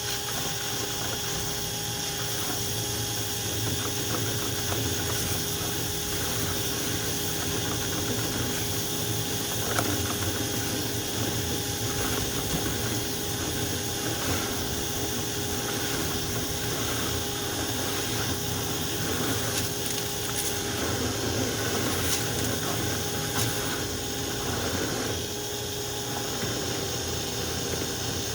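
Rotary dryer vent brush spun by a power drill inside the vent duct while the clothes dryer runs; a steady motor whine over the dryer's blower noise.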